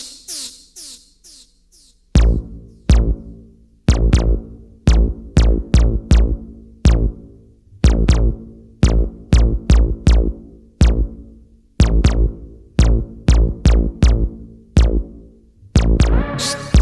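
Electronic dance music: a drum-machine beat with deep booming bass kicks starts about two seconds in after a short fading intro, and a fuller section with more instruments comes in near the end.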